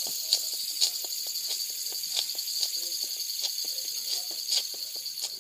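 Fidget spinner whirring close to the microphone: a steady high hiss from its spinning bearing, with repeated small clicks. The whir cuts off right at the end.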